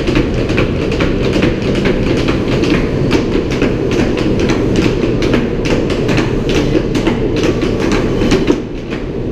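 Tap shoes striking wooden boards in quick, irregular rhythmic bursts of sharp taps, over a loud, steady low rumble.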